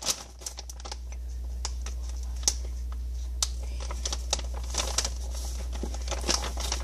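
Scattered light clicks and crinkles from hands handling small things, possibly food packaging, over the steady low hum of an open refrigerator.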